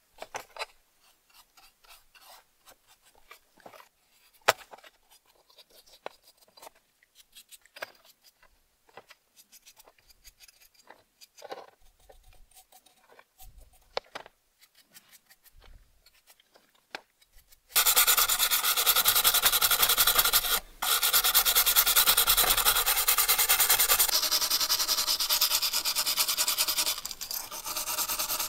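Scattered small clicks and taps as rusty metal lantern parts are handled in a plastic tray while paint-stripper gel is brushed on. About two-thirds of the way in, loud steady scraping begins as a hand tool scrubs stripped paint and rust off a small metal lantern part, with a brief break shortly after it starts.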